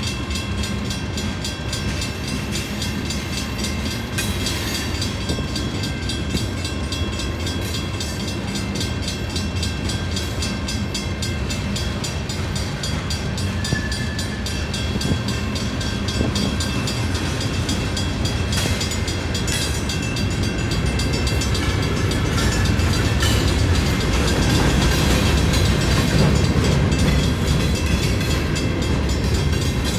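Freight train cars rolling past at a grade crossing, a steady rumble of wheels on rail that grows louder in the second half, with the crossing's warning bell ringing over it.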